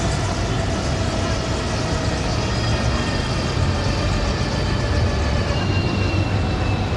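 Bell 429 helicopter running, its twin turbine engines and rotor making a steady, loud noise with faint whining tones that slowly fall in pitch.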